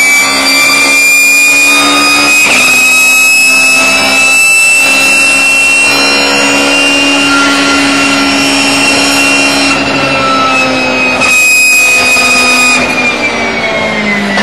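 Race car engine at high revs, heard from inside the cockpit. The note climbs slowly, breaks off briefly a few times, and falls in pitch near the end as the car slows.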